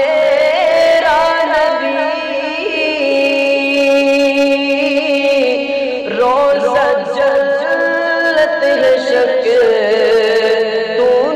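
A man singing an Urdu naat, drawing out long held notes with slow, ornamented turns of pitch.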